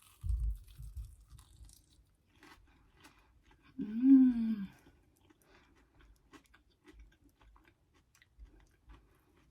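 Close-up sounds of a person biting into and chewing a fried mac and cheese bite, with soft crunches and wet mouth clicks. About four seconds in comes a short hummed "mmm" of enjoyment.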